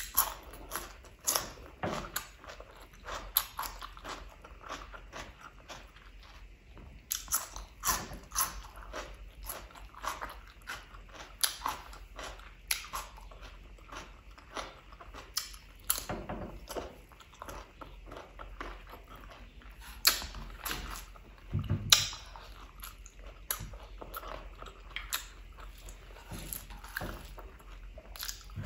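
Close-miked eating: crisp bites into raw cucumber and chewing, with irregular sharp crunches between quieter wet chewing sounds.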